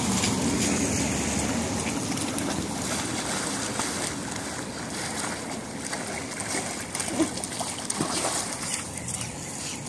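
Pugs paddling and splashing through shallow floodwater, a steady sloshing of water, with a few brief louder moments near the end.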